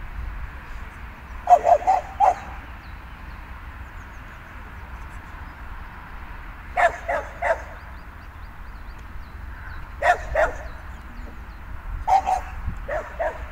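Young border collie barking in quick runs of two to four sharp barks, four times over, above a steady low rumble.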